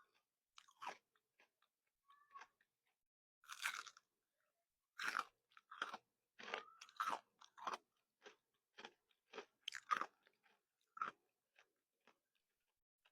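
Crystal candy being bitten and chewed close to the microphone: a run of short, sharp, irregular crunches that come thickest in the middle and thin out toward the end.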